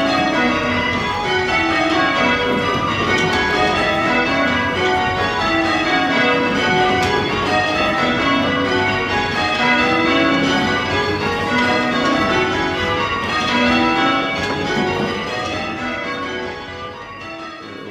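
Change ringing on a ring of eight church bells, cast by Taylor's of Loughborough in 1965, with a 7 cwt tenor in B. The bells strike one after another in an even, continuous rhythm, their order shifting from change to change, and the ringing grows quieter near the end.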